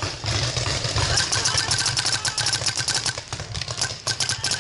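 Paintball marker firing in rapid strings of sharp pops: one long string from about a second in, a short pause, then another string near the end.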